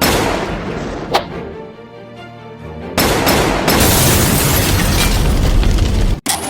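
Added sound effects over background music: a boom at the start that fades away, a sharp click about a second in, then a loud rushing noise from about three seconds in that cuts off suddenly.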